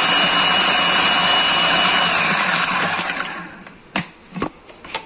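Electric blender running at full speed through a yogurt, onion and herb mixture, with a steady high whine; about two seconds in it is switched off and the motor winds down, its whine dropping in pitch as it fades. A few sharp knocks follow near the end.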